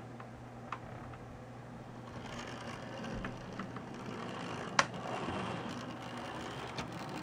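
HO-scale model steam switcher locomotive, built in the 1960s, running along the track: its small electric motor and wheels make a steady whirring rattle that swells in the middle. A few sharp clicks come over it, the loudest about five seconds in.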